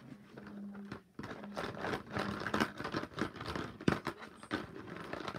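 Hand rummaging through markers and crayons in a plastic pumpkin bucket: a busy run of rattling, clicking and scraping as the pens knock against each other and the plastic, starting about a second in.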